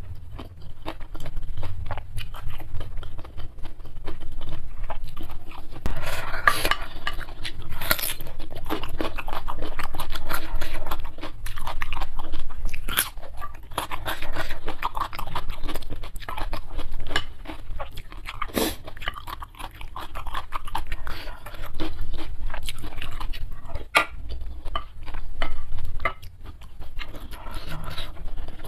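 Close-miked eating sounds: slurping and wet chewing of instant fried noodles, with crunchy bites and scattered sharp clicks.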